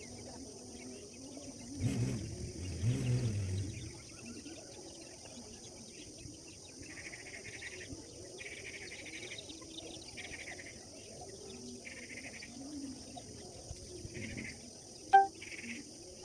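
Birds calling over a steady, high insect drone, with a run of short buzzy calls repeating about once a second through the second half. A low rumble comes about two to four seconds in, and a single sharp, loud chirp sounds near the end.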